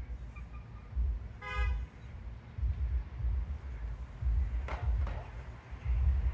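A single short horn toot about a second and a half in, over a low rumble that swells and fades every second or so, with a couple of faint clicks near the end.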